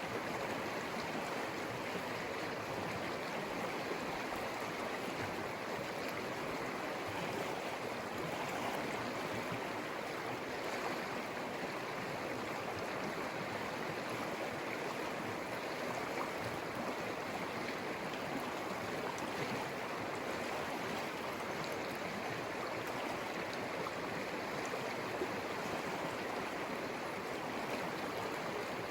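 The Conejos River flowing: a steady, even rush of moving water that does not change in level.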